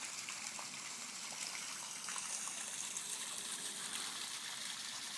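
Water gushing from a basement drainage outlet pipe and splashing onto a flooded patio: a steady rushing hiss that swells slightly about two seconds in.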